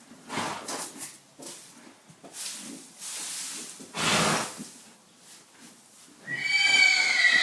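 A horse whinnying near the end, a pitched call that begins about six seconds in and is the loudest sound. Before it come several short noisy bursts of breath or snorting, the strongest about four seconds in.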